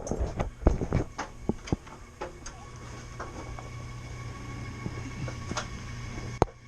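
A quick run of sharp metallic knocks and clanks, then a steady low hum with a faint high whine from the HVAC unit being worked on, and one more sharp knock near the end.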